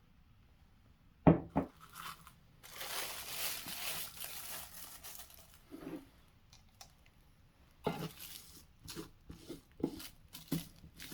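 Kitchen handling sounds: two sharp knocks, then a few seconds of crinkling and tearing of packaging, then a run of short knocks and taps.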